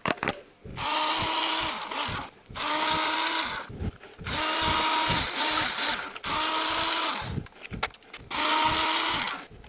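Cordless drill/driver spinning a 10 mm socket to run out the valve cover bolts on a Honda D17A engine. It runs in about five spurts of one to two seconds each, with a steady motor whine and short pauses between them.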